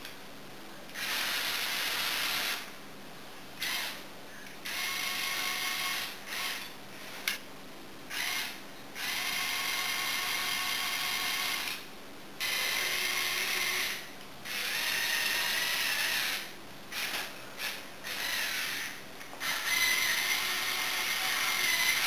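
A remote-controlled LEGO Technic tracked vehicle drives in short spurts of one to three seconds, starting and stopping about ten times. In each spurt its Power Functions electric motors whine and its plastic gears and tracks rattle.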